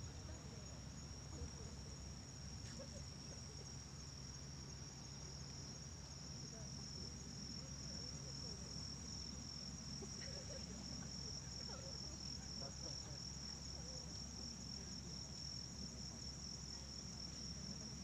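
Steady high trilling of insects in the grass, likely crickets, unbroken throughout, over a low steady rumble of sea breeze and distant surf.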